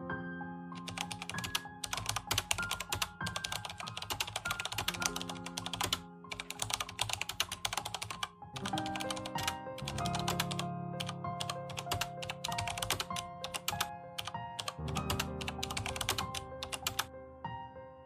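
Rapid computer-keyboard typing in long runs of clicks with a couple of brief pauses, stopping about a second before the end, over slow piano music.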